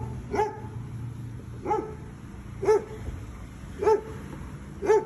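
A dog barking in single short barks, five of them at roughly one-second intervals.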